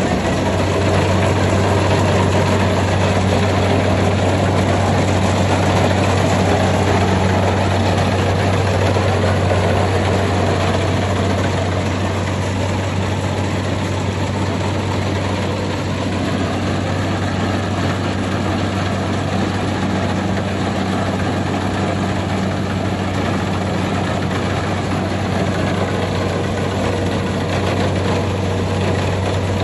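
Kubota combine harvester's diesel engine running steadily under load, a constant low hum with a haze of machinery noise over it. It eases slightly about a third of the way in.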